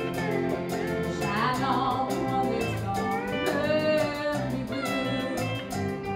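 Live country band music with a steady beat, with a gliding voice-like lead line over it.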